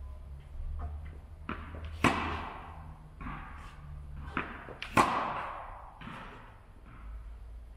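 Tennis ball struck hard by a racket twice, about three seconds apart, each hit echoing in a large indoor hall, with lighter knocks of the ball bouncing on the court between the hits.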